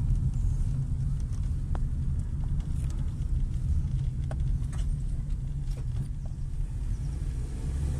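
Steady low rumble of a car driving at low speed, heard from inside the cabin, with a few faint clicks.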